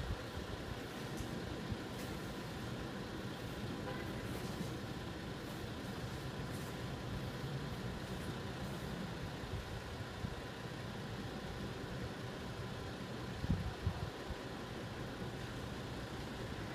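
Diesel coach engines idling steadily while parked, left running at a standstill rather than switched off. A couple of brief low thumps come about two-thirds of the way through.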